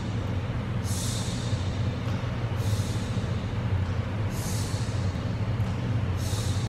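Electronic background music: a steady low droning bass with a hissing swish that comes in about every second and a half to two seconds.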